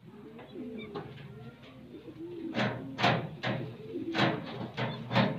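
Pigeons cooing, low gliding calls. From about halfway in, a run of about six short sharp sounds, roughly every half second.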